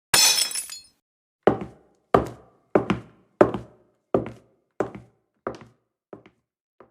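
A short, bright crash, then a run of about nine evenly spaced knocks or thuds, roughly one and a half a second, that grow fainter toward the end.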